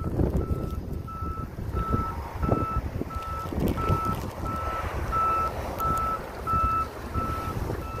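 A heavy construction vehicle's reversing alarm beeping steadily, about one and a half beeps a second, over a low rumble, with a fainter, higher beep joining now and then.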